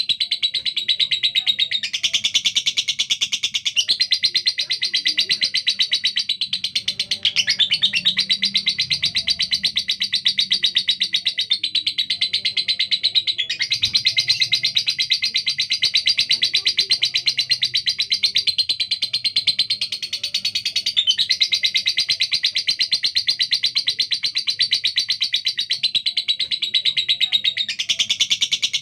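Female lovebird chattering in one long, unbroken run of rapid, harsh calls, the fast, rough-voiced 'speed' delivery that hobbyists prize in a competition bird.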